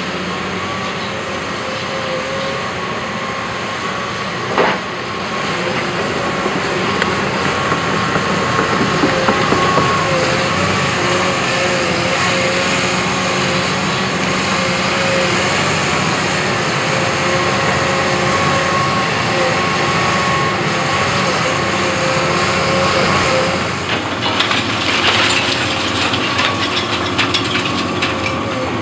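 Cat 324E hydraulic excavator working: its diesel engine runs steadily under a wavering high whine. A single knock comes about five seconds in, and a run of rattling and clattering fills the last few seconds.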